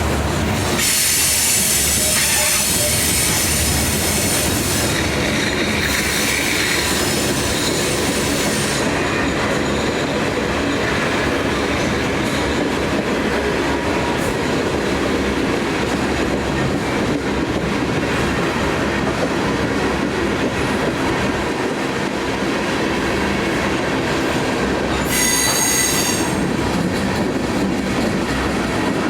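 Train rolling past at close range with a continuous loud rumble of wheels on rail. High-pitched metallic wheel squeal rings out from about a second in for several seconds, and again briefly near the end.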